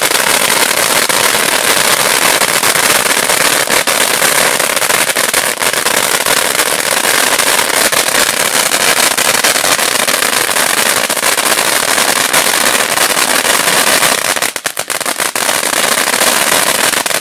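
Blackboxx Nova ground fountain burning: a continuous loud hissing spray of sparks with dense crackling, dipping briefly about three-quarters of the way through.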